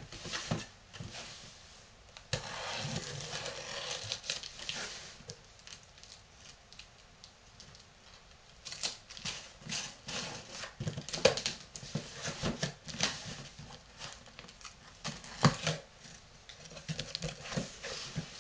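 A cardboard package and shoebox opened by hand: a few seconds of rustling or tearing about two seconds in, then scattered taps, clicks and knocks of cardboard and paper being handled.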